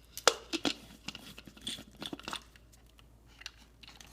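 Hario ceramic hand burr grinder being handled: a string of irregular clicks and light knocks, the sharpest near the start.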